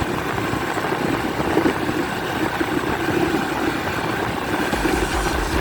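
Honda Pop 110i motorcycle's small single-cylinder engine running steadily while riding. A low rumble comes in near the end.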